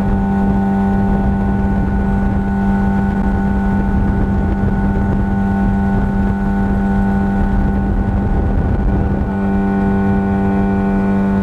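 15 hp outboard motor running at a steady speed, a constant-pitched engine drone over low rumble.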